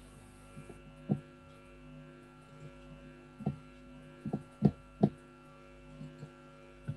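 Steady electrical hum in the call's audio, with a handful of brief soft knocks or clicks scattered through it.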